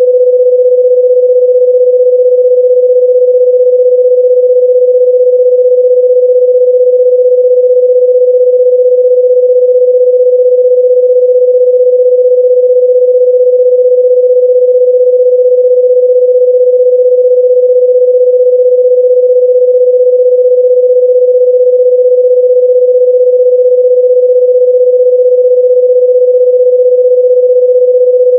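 A loud, steady electronic sine-wave tone held at one mid pitch, with no pulsing or change.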